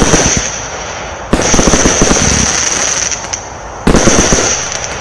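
Velocity Mini consumer firework cake firing: a sudden blast about every two and a half seconds, each followed by a dense crackle that fades as the stars burn out.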